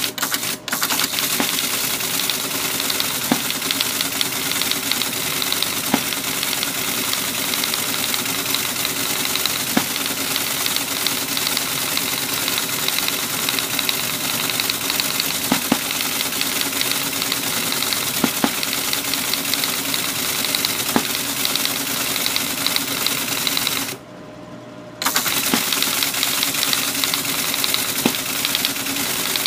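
Teletype Model 33 ASR printing line after line of a program's output: a steady rapid clatter of the typing mechanism over its motor hum, with a louder knock about every three seconds. It goes quiet for about a second near the end, then clatters on.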